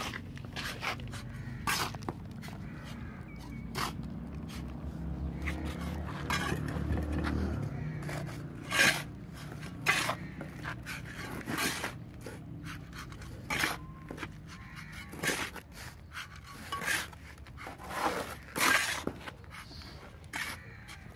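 Gravel-and-cement concrete mix scooped up by hand and thrown into a steel roof-tile mould, heard as gritty scrapes and dumps every second or two.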